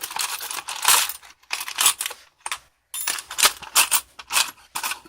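Small metal parts and tools clinking and clattering as hands rummage through a container of hardware, in irregular bursts with short gaps.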